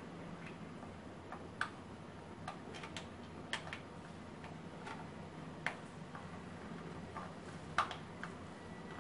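Irregular small clicks and ticks from hand work at an electric instant water heater's terminal block as the power wires are fastened and the terminal screws tightened, the sharpest click near the end.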